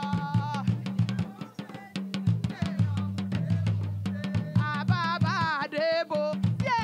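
Yoruba traditional group music: women's voices singing over a busy, steady beat of drums and percussion. The singing drops out for a few seconds in the middle while the drumming carries on, then returns near the end.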